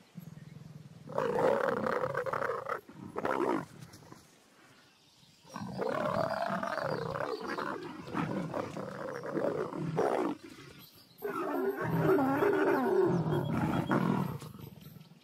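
Leopards growling in three long bouts, the calls of a mating pair.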